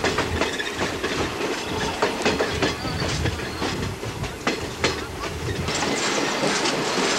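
Passenger train rolling along, heard from aboard: steady running noise of the cars, with irregular clicks and clacks from the wheels passing over rail joints.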